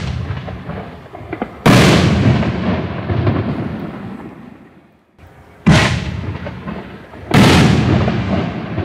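Consumer 5-inch canister shells from a 24-shot fireworks cake: a shell bursts loudly about a second and a half in, with a long fading echo, then another shell launches with a sharp thump and bursts under two seconds later.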